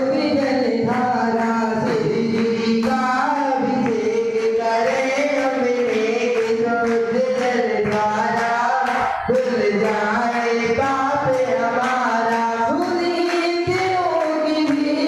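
Voices singing a devotional Jain chant through a microphone during an abhishek ritual. The melodic line runs on without a break, with faint regular clicks behind it.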